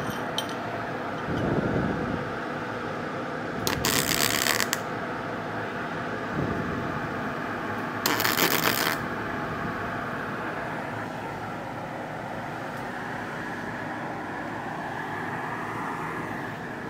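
Two short bursts of a pulsed MAG welding arc on steel plate, each about a second long, crackling and spitting because the shielding-gas cylinder has not been opened. A steady fan hum runs underneath.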